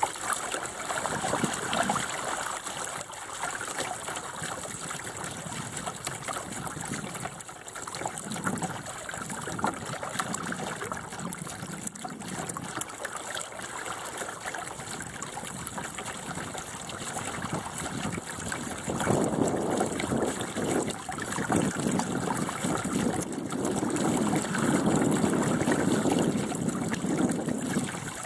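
Water rushing and gurgling along the hull of a small sailing dinghy under way, swelling louder twice in the second half.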